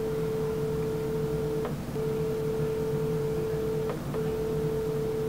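A steady mid-pitched tone over a phone's speakerphone while an outgoing call rings unanswered, broken by a short gap about every two seconds.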